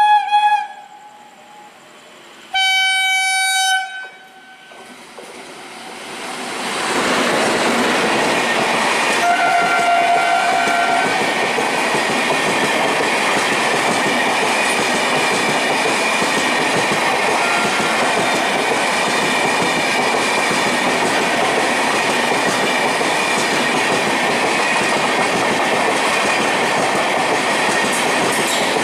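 An Indian Railways express train sounds its horn in short blasts, then rushes past at speed, the rattle of its wheels on the rails building over a few seconds and holding steady and loud.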